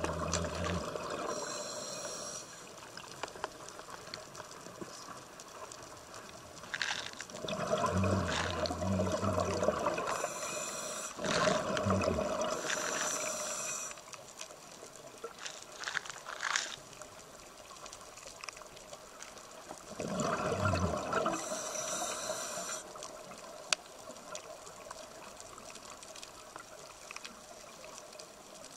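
Scuba diver breathing through a regulator underwater: a hissing inhalation and a gurgling rush of exhaled bubbles, repeated in several breaths several seconds apart over a steady underwater hiss.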